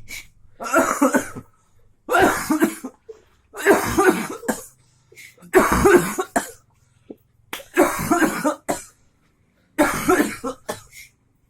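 Repeated coughing: six loud coughing fits, each lasting about a second, with short quiet gaps between them.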